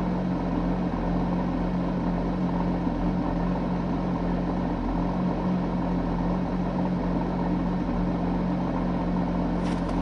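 Porsche 911 GT3's flat-six engine running at a steady speed, heard inside the cabin as a constant low drone of about 72 dB, with Killmat sound deadening fitted behind the rear interior.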